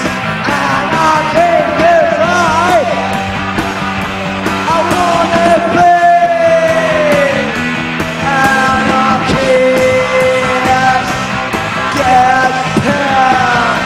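Punk rock band playing live: a shouted lead vocal over electric guitars, bass and steady drums, with a long held vocal note sliding down about six seconds in.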